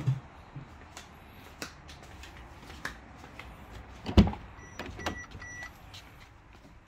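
Fiat 500e driver's door opening with a loud latch clunk about four seconds in, followed at once by the car's electronic chime beeping three times at a steady high pitch. A dull thump right at the start and light clicks and shuffles come before it.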